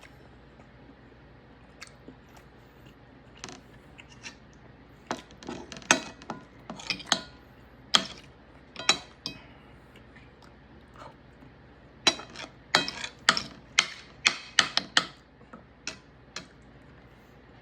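Knife and fork clinking and tapping against a plate, as when cutting steak. The sharp taps come in two clusters a few seconds apart, some with a short metallic ring.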